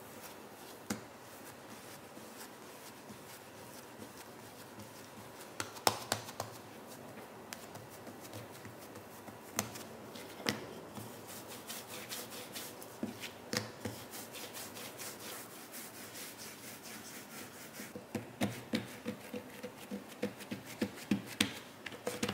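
Hands working bread dough on a silicone baking mat: kneading, rolling it out with a rolling pin and pressing it flat. Soft rubbing is broken by scattered light taps and knocks, which come several a second near the end.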